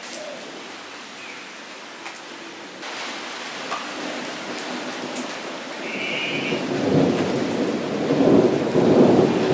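Steady rain falling on a puddled ground surface, a dense patter of drops. From about six and a half seconds in, a deep rumble swells up under the rain and grows much louder toward the end, with a brief high whine just before it.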